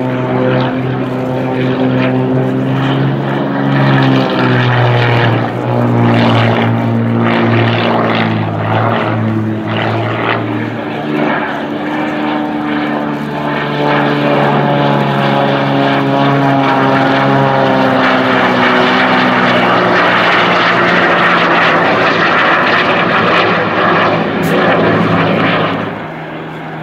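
Aerobatic propeller plane's piston engine and propeller droning overhead, the pitch shifting up and down in steps as the power changes through the manoeuvres. A broader rushing noise grows louder in the second half.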